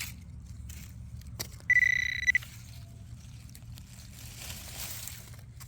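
A single steady electronic beep from metal-detecting gear, lasting about two-thirds of a second and starting about a second and a half in, signalling metal in the hole, which turns out to be a silver dime. A few faint scrapes of digging in soil come over a low steady rumble.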